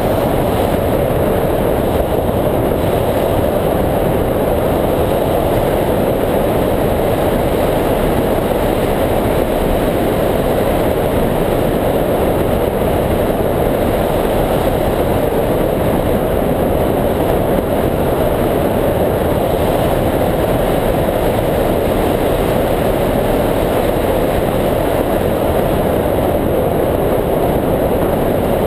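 Loud, steady rush of airflow over the microphone of a camera mounted on the wing of a hang glider in flight: an even windy noise with no engine or voices.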